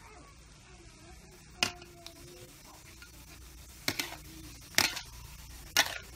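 Cucumber pieces being stir-fried in a steel wok: a metal spatula scrapes and clanks against the pan four times, over a faint steady hiss.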